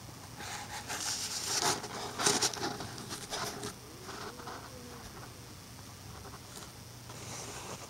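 Crunching and scuffing of shuffling footsteps and movement on snowy ground, with some handling noise, in a cluster over the first half. After that only a faint low hum and a few light ticks remain.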